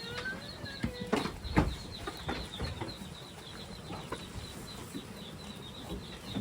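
Farmyard animal sounds: a short pitched animal call in the first second and a few sharp knocks around a second in, over a steady high chirping repeating about five times a second.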